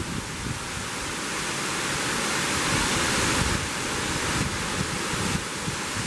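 Waterfall: the steady rush of a tall fall of water plunging onto rocks, growing a little louder about halfway through, with wind buffeting the microphone.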